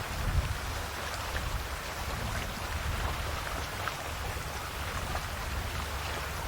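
Calm sea lapping at the shore: a steady wash of small waves with many fine crackling splashes and fizzing drops.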